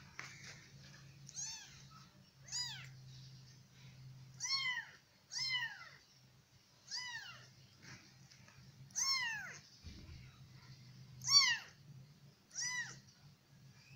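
Weeks-old kitten mewing: about eight short, high-pitched mews a second or two apart, each rising and then falling in pitch, the loudest about three-quarters of the way through.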